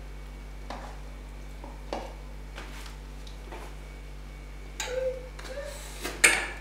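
A spoon and plastic containers handled while scooping ingredients: a few soft clicks and scrapes, then a sharper knock near the end.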